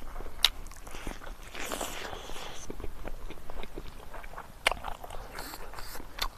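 Close-up eating sounds: a man biting into and chewing a curried chicken leg, with wet mouth noises and a few sharp clicks, and fingers picking through rice and curry.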